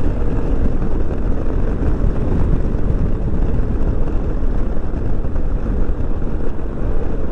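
Yamaha XMAX 300 scooter's single-cylinder engine pulling under a well-opened throttle at road speed, a steady drone mixed with rushing wind noise.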